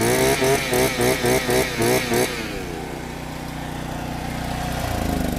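A rhythmic pulsing sound, about four pulses a second, for the first two seconds. Then street traffic: a motor vehicle passes, its engine growing louder toward the end and its pitch falling as it goes by.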